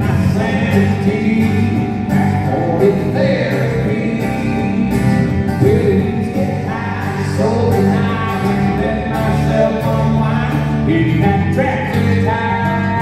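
Live acoustic country band playing a song on acoustic guitars and strings, with a man singing in phrases over a steady rhythm, amplified through a PA.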